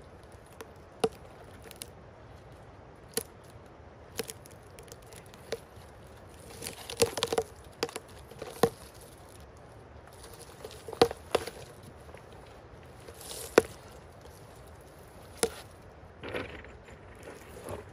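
Dry twigs snapping and forest litter crunching as a large cut log is rolled by hand over the ground: scattered sharp cracks a second or two apart, with tighter clusters about seven seconds in and again around eleven seconds.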